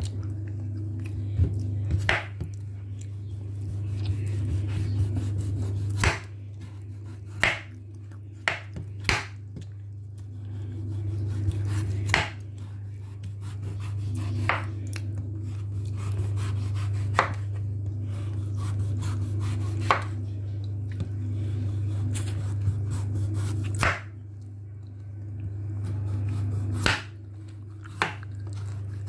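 Chef's knife cutting the peel off a butternut squash on a wooden chopping board: slicing strokes, each ending in a sharp knock of the blade on the board, about every one to three seconds. A steady low hum runs underneath.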